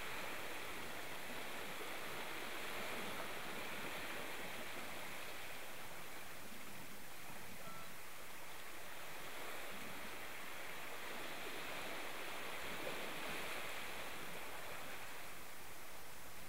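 Steady wash of moving water, an even rushing hiss that swells and eases slowly.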